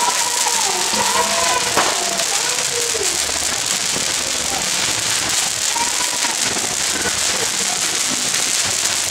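Ground fountain firework spraying sparks with a steady hiss, with one sharp pop about two seconds in.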